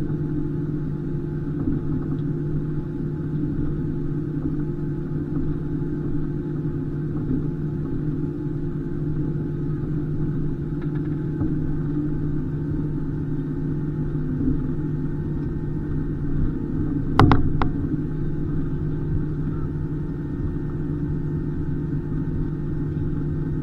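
Steady low rumble with a constant hum inside the cabin of an Airbus A320 airliner, with a brief cluster of clicks about 17 seconds in.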